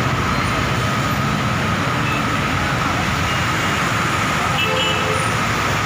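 Road traffic of buses, trucks and motorbikes driving through a flooded road, engines running over a steady rush of noise. There are brief horn toots about five seconds in.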